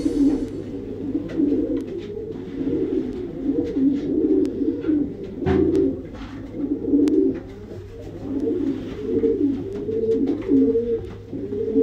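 Racing pigeons cooing steadily, phrase after phrase overlapping. A short thump about five and a half seconds in, with a few faint clicks.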